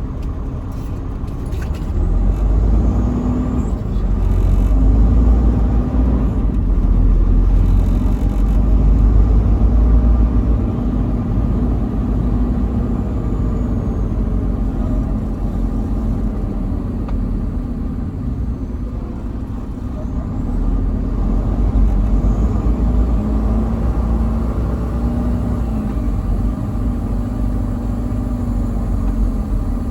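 Semi-truck's diesel engine running at highway speed, with a steady low road rumble and an engine note that drifts gently up and down with engine speed.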